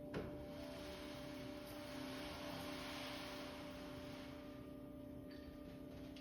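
Crystal singing bowls ringing with steady, pure sustained tones, with a brief knock just after the start.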